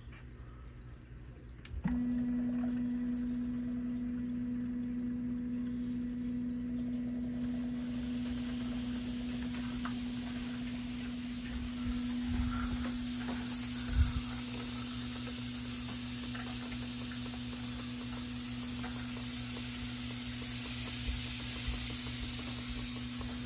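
Repti Zoo 10-litre high-pressure reptile misting system switched on: its pump starts about two seconds in with a steady hum. A hiss of mist spraying from the nozzles builds from about a third of the way in and grows stronger. A single short thump comes just past halfway.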